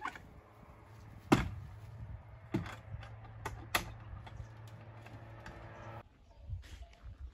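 Sharp knocks and clinks of a wooden plank garden gate and a metal pail's handle as someone passes through the gate carrying the pail, the loudest knock about a second in, over a low steady hum. After a break about six seconds in, a few soft footsteps.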